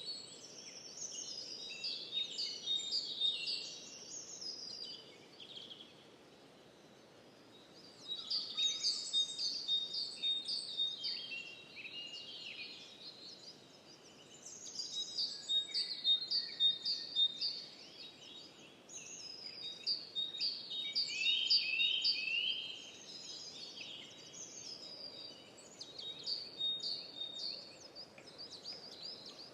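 Songbirds singing, rapid chirping phrases a few seconds long that come back about every five or six seconds, over a faint steady background hiss.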